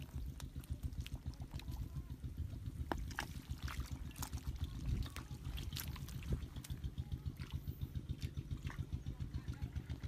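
A small engine running steadily at an even, fast low pulse, with scattered sharp crackles over it.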